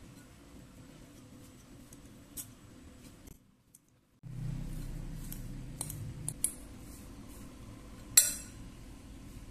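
Metal fork mashing cooked potato in a glass bowl, with scattered clinks of the fork against the glass. The loudest, ringing clink comes near the end.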